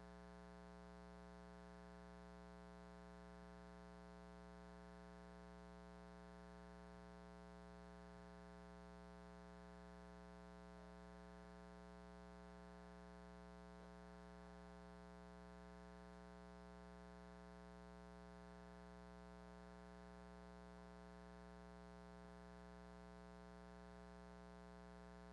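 Near silence with a faint, steady electrical hum, a buzz of many even overtones that stays unchanged throughout.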